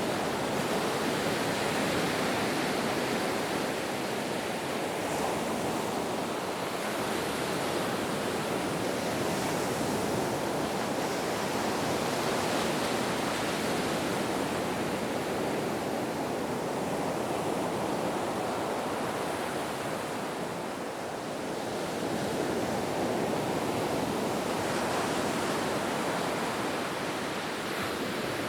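Ocean surf breaking on a beach: a continuous rushing wash of waves that swells and eases slowly, dipping briefly about two-thirds of the way through.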